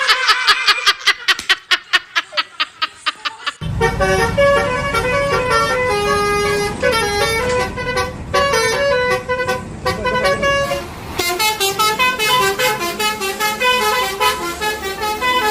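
Basuri telolet bus horn playing a tune of held notes that step from pitch to pitch, over a low rumble for much of it. For the first few seconds there is only a rapid run of short pulses.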